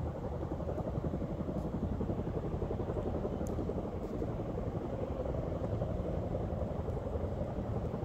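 Chinook helicopter's tandem rotors beating in a rapid, steady low throb.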